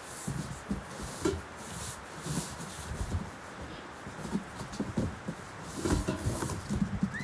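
Cardboard box and packing being handled while a band saw is unboxed: irregular rustling, scraping and light knocks of cardboard and paper.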